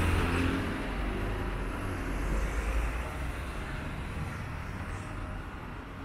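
City street traffic noise: a nearby vehicle's low engine rumble, loudest at the start and fading over the first few seconds, over steady road noise.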